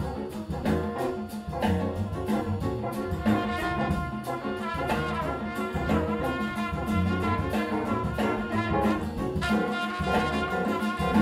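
Big band jazz playing: a trumpet solo over the band's horns and drum kit.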